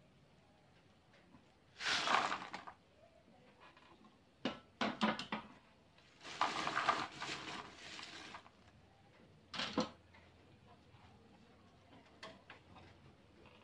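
Crisp fried cassava chips rustling and clattering as they are shaken and tipped from a wire spider skimmer into a plastic basin, in about four short bursts, the longest some six seconds in.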